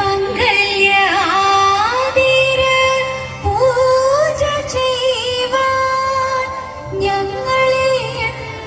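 Malayalam Thiruvathira dance song played over a stage sound system: a voice sings long, sliding, ornamented notes over a low repeating drum beat.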